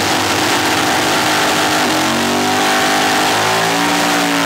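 Drag car's engine held at high revs through a burnout, its rear tyres spinning on the pavement. The engine note climbs in steps from about halfway through.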